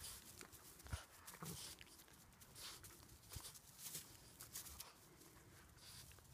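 Faint scuffling and rustling in dry grass as a pitbull puppy tugs at a rope toy, with a few short soft knocks scattered through.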